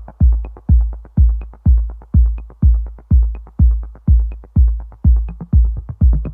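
Electronic background music driven by a steady four-on-the-floor kick drum, about two beats a second, with a light high tick on every other beat.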